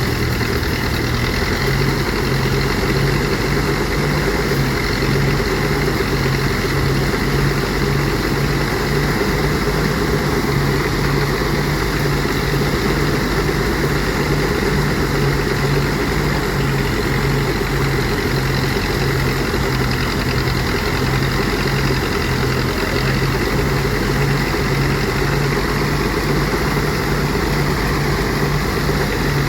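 Rice threshing machine running steadily, its engine droning without a break.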